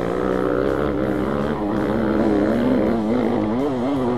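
Dirt bike engine running under changing throttle on a rough trail, its pitch swinging up and down, with quick rises and falls near the end.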